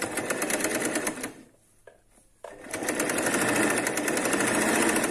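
Electric sewing machine stitching through fabric: it runs for just over a second, stops for about a second, then runs again steadily for nearly three seconds.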